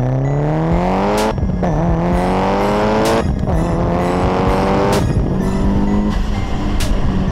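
Mitsubishi Lancer Evo 8's turbocharged 4G63 inline-four exhaust under hard acceleration: revs climb, drop at an upshift about a second in and again about three seconds in, climb once more, then hold steady near the end. Music with sharp regular hits plays along.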